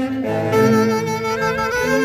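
A saxophone-led orquesta típica playing a tunantada. Several saxophones carry the melody together in sustained, wavering notes over the band.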